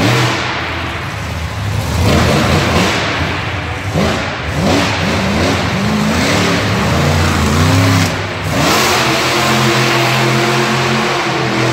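Monster truck engine revving again and again, its pitch rising and falling, then holding a steady drone for the last few seconds.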